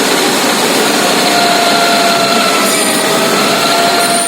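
Lathe running under power, its cutting tool turning a metal workpiece: a steady machine noise with faint whining tones that drift slightly in pitch.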